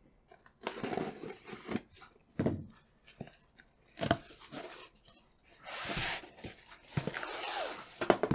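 Cardboard shipping box being opened by hand: packing tape pulled and torn off, with cardboard flaps rustling and knocking in short bursts and a longer tearing noise just past the middle.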